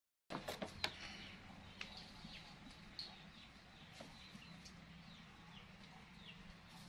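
Birds chirping in short, falling notes over a low steady hum, after a brief silence. A few sharp clicks come just after the sound starts.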